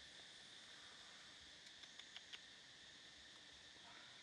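Faint, steady drone of forest insects, with four light ticks in quick succession about halfway through.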